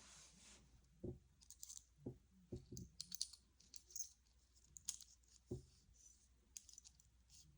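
Faint scattered clicks and light taps of small titanium pen parts being handled.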